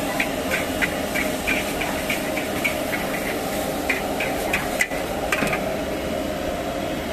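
Metal spatula scraping and clacking against a steel wok as noodles are stir-fried, over a steady hiss of frying. The scrapes come in quick strokes, about two or three a second, through the first five seconds, with two sharper clacks about five seconds in.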